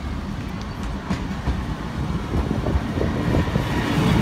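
Class 153 diesel railcar approaching and passing close by, its underfloor Cummins diesel engine and wheels making a low rumble that grows steadily louder. Short wheel clicks over the rail joints come through the middle and toward the end.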